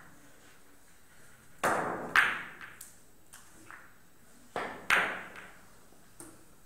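Sharp clicks of billiard balls and cue striking on a carom table, in two loud pairs about three seconds apart, with fainter knocks in between.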